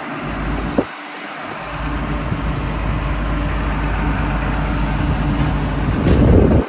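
Diesel engine of a Hyundai R230L crawler excavator running steadily, with a sharp click a little under a second in. The sound grows louder near the end, then cuts off abruptly.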